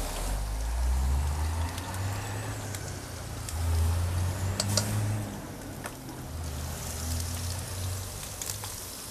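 Duck carcass pieces sizzling on a gas grill while metal tongs turn them, with a few sharp metallic clicks. Under it runs a steady low engine-like rumble that swells twice.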